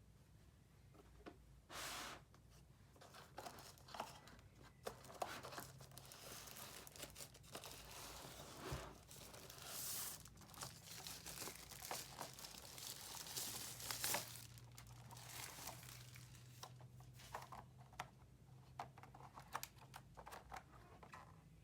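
Packaging handled and torn open: crinkling and tearing of wrapping with scattered light knocks and clicks, faint throughout.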